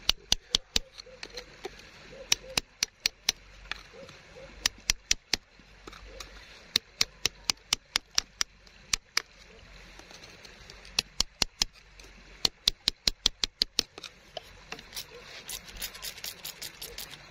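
A hand tool tapping and prying at a rock embedded in wet gravel: sharp clicks in quick runs of several strikes, with short pauses between runs. The runs come faster and closer together near the end.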